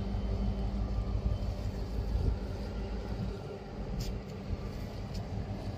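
Steady low engine drone of a boat on the water, with a continuous hum and the wash of water and wind. Two short ticks come near the end.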